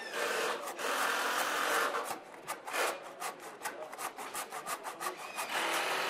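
Handsaw cutting wood, run through the gap of a miter joint to true it, in quick, regular strokes from about two seconds in.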